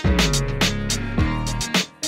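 Background music with a steady drum beat: a deep bass note slides down in pitch at the start and holds for about a second and a half before the beat carries on.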